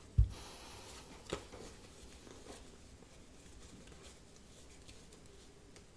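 A deck of tarot cards handled in the hands: a low thump just after the start, a short papery rustle, and a sharper click about a second later. Then faint room tone with a few soft ticks.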